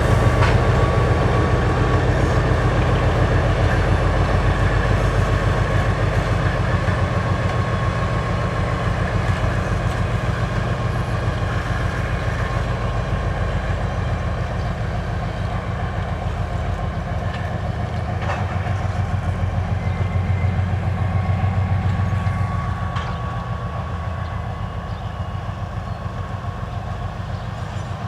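2TE10M diesel locomotive's 10D100 two-stroke opposed-piston diesel engine running steadily with a low, pulsing beat, dropping off a little in loudness past twenty seconds in.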